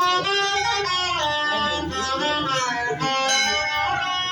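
Music led by a plucked string instrument, a melody with notes that slide up and down in pitch.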